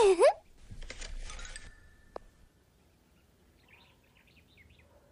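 A short falling vocal sound, then about a second of soft airy hiss, a single light ting, and faint bird chirps near the end.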